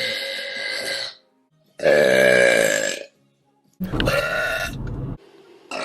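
Three burps from women, one after another with short silent gaps between them; the middle one, about two seconds in, is the loudest, with a drawn-out pitched croak.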